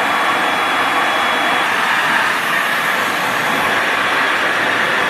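K&B high-speed hair dryer running steadily: a strong, even rush of air, with a faint thin high whine that stops under a second and a half in.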